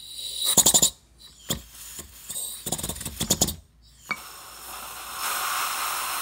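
Compressed-air blow gun pressed into a brake caliper's fluid port: a few short, sharp bursts of air, then a steady hiss from about four seconds in that grows louder a second later. The air is pressurizing the caliper bore to inflate the new dust boot so it can be seated over the piston.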